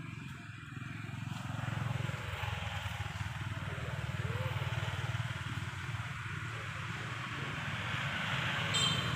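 An engine running steadily with a low hum, growing gradually louder.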